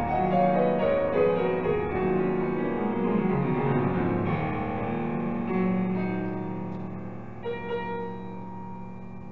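Solo grand piano playing a slow descending line of notes, then settling on a held chord that rings and fades, with a few soft notes near the end.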